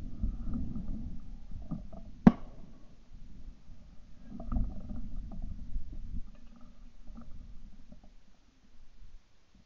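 Low rumbling wind and handling noise on a shotgun-mounted ShotKam camera's microphone, with one sharp crack about two seconds in; the rumble fades near the end.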